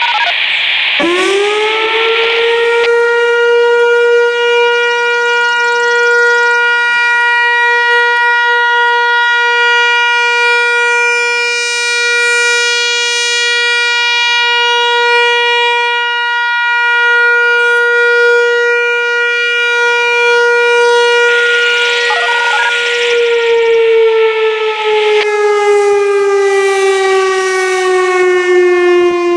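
Whelen WPS-4004 electronic outdoor warning siren with a custom analog pitch sounding a steady alert tone. The tone sweeps up about a second in and holds one pitch, swelling and fading slightly as the rotating speaker array turns, then glides slowly lower over the last several seconds.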